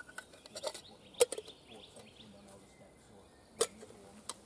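Sharp clicks as a lid and a camping mug are handled and knocked together: two loud ones about two and a half seconds apart, with a few lighter taps between them.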